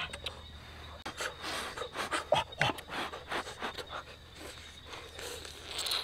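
Close-up eating noises of people feeding on cooked snake meat: irregular wet slurping, sucking and lip-smacking with short huffing breaths.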